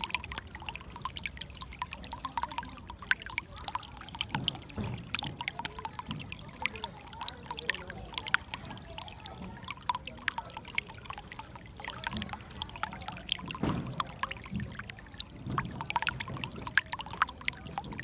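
Shallow water flowing and trickling over stones, a dense, steady patter of small splashes with a few deeper gurgles now and then.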